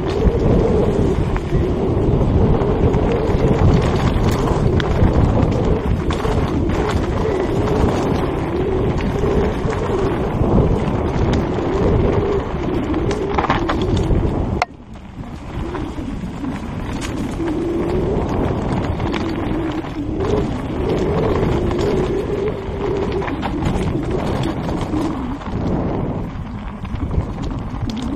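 Mountain bike descending a dirt and gravel trail, heard from a helmet camera: wind rumble on the microphone, tyres on loose ground and the bike rattling, with a wavering hum throughout. The noise drops off suddenly about halfway and then builds again.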